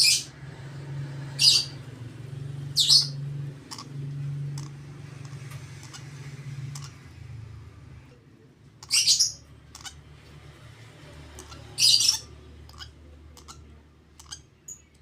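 Young lovebird chick, about a month old, giving harsh squawking calls during hand-feeding, the begging calls of a chick at feeding time. There are five loud calls a few seconds apart, with fainter clicks between them. A low hum runs under the first half.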